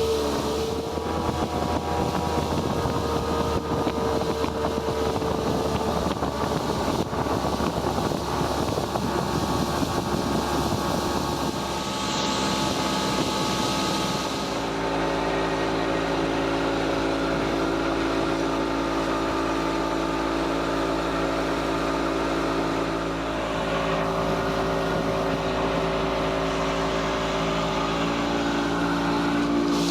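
Motorboat engine running steadily under way, its note shifting to a different steady pitch pattern about halfway through.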